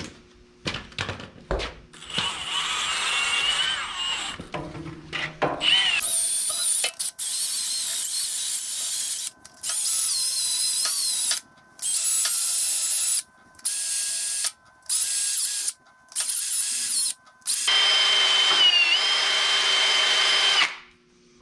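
Cordless drill spinning a wire brush against a tractor's PTO shaft to clean it up: a loud, scratchy scrubbing with the motor's whine, started and stopped in about nine bursts of one to three seconds each. A few clicks of handling and a short run of the drill come first.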